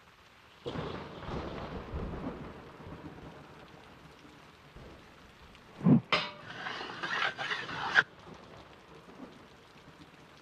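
Thunderstorm: steady rain hiss with a rumble of thunder breaking in about a second in and slowly fading, then a sharper, louder crack near six seconds followed by two seconds of bright crackling that cuts off suddenly.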